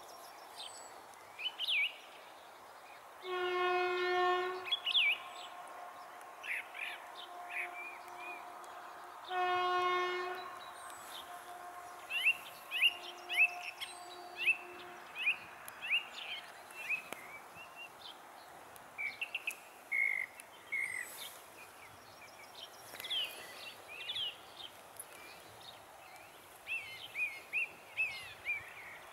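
Horn of the class 740 diesel locomotive 740 843-8, out of sight, sounding two long blasts about six seconds apart, the second trailing off in a fainter tone. Common blackbird singing throughout in many short whistled phrases.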